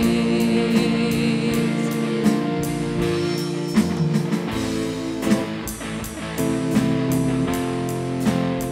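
Live worship band playing an instrumental passage between sung lines: electric guitars and bass over a drum kit keeping a steady beat.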